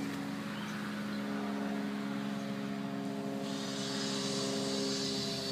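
An engine running steadily at constant speed, giving an even hum. About three and a half seconds in, a hiss joins it.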